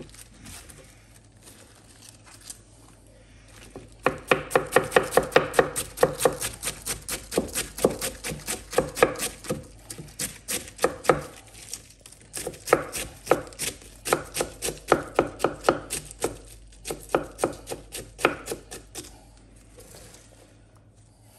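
Large kitchen knife shredding a head of green cabbage on a wooden cutting board: quick, even chopping strokes, several a second. The chopping starts about four seconds in and comes in runs with short pauses between them.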